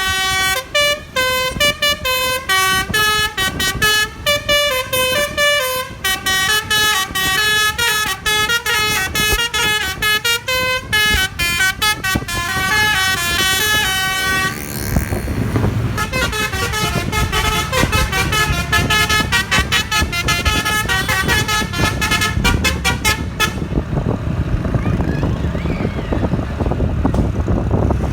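A bus's basuri telolet horn sounding through roof-mounted trumpets, playing a quick melody of stepped, multi-tone notes. About halfway a low bus engine rumble comes in under the horn, and a few seconds before the end the horn stops, leaving the rumble.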